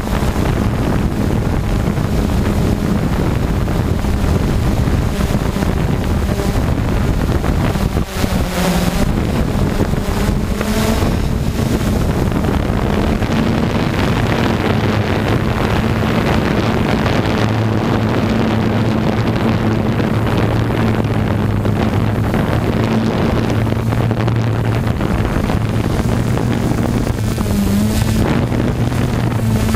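Flame Wheel multirotor's electric motors and propellers droning steadily, heard from its onboard camera, with wind buffeting the microphone. The pitch dips briefly about eight seconds in and again near the end.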